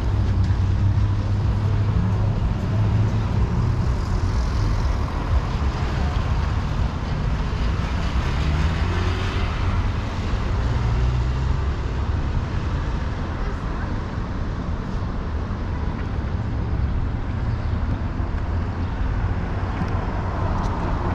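Steady street traffic noise, vehicles running with a continuous low rumble.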